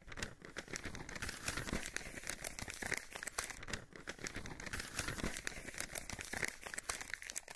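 Paper crumpling and crinkling, a dense irregular run of small crackles, as a scroll is rolled and handled.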